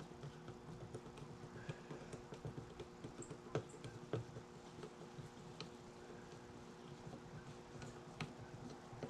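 Faint scattered clicks and light taps of small hand work on parts, over a steady low hum.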